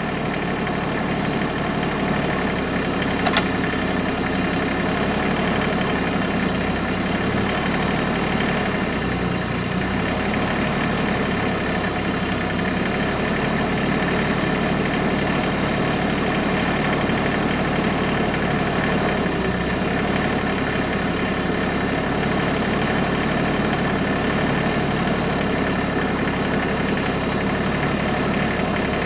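Tractor engine running steadily at an even speed, with one brief click about three seconds in.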